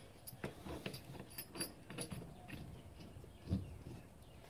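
Faint handling noise of small brake-caliper hardware: light clicks of metal parts and washers, with a soft knock about three and a half seconds in as the cast caliper is set on the bench.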